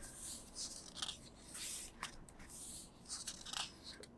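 Pages of a thick photo book being turned and smoothed by hand: a series of faint, soft paper swishes and rustles.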